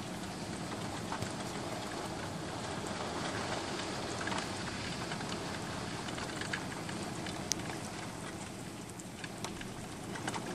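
Heavy rain falling on the street and pavement: a steady hiss, with scattered sharp ticks of single drops landing close by.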